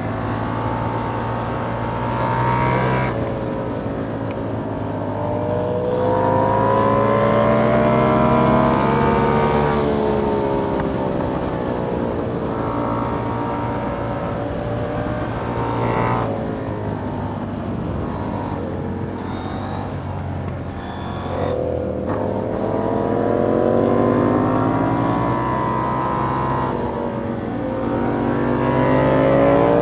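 2021 KTM Duke 890R's parallel-twin engine through a catless Austin Racing GP1R exhaust, ridden hard: the pitch climbs in long rising sweeps as the bike accelerates, then drops off sharply several times at gear shifts or throttle closings.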